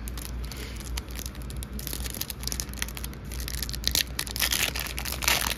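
Foil wrapper of a Pokémon TCG mini booster pack crinkling and tearing as it is ripped open by hand. The crackling grows denser about two seconds in and is loudest near the end.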